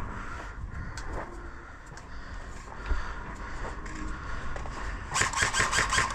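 A low rumble with a few faint clicks, then about five seconds in an airsoft gun fires a fast burst, roughly eight to ten sharp shots a second, running on past the end.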